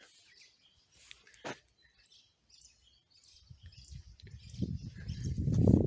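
A few faint bird chirps, then from about three seconds in a low rumble of wind on the microphone builds up and turns loud near the end.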